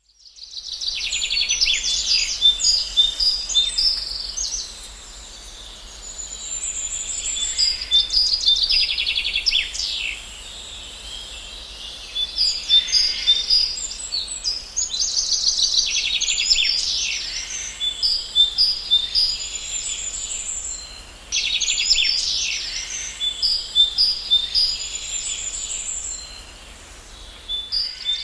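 A chorus of small birds chirping and singing, with many quick high chirps and trills coming in flurries every few seconds.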